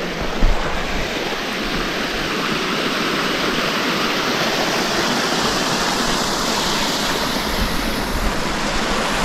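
Small hillside stream rushing over little rocky cascades: a steady rush of water, with a brief knock about half a second in.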